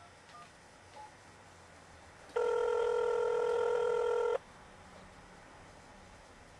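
Mobile phone keypad beeps as the last digits are dialed, then a telephone ringback tone: one steady two-second ring signalling that the call is ringing at the other end.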